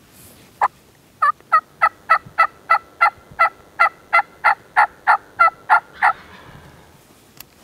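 Turkey hen yelping: a single note, then a long, even run of about seventeen two-pitched yelps, roughly three and a half a second, stopping about a second before the end.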